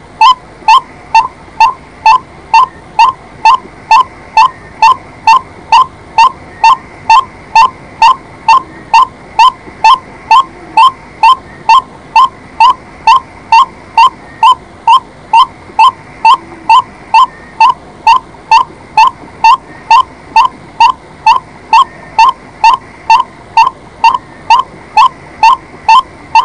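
White-breasted waterhen calling: one short, slightly rising note repeated steadily, about twice a second, on and on.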